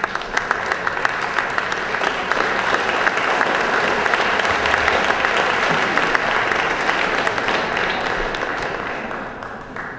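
Audience applauding, swelling over the first two seconds and dying away near the end.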